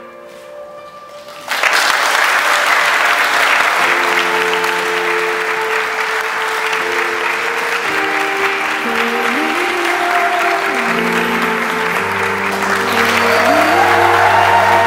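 Applause from a crowd of guests, breaking out suddenly about a second and a half in and going on steadily. Music with held notes comes in underneath about four seconds in.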